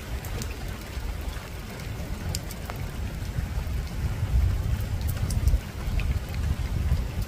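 Steady rain falling on a rooftop, with scattered drops ticking sharply over the patter and a low, uneven rumble underneath.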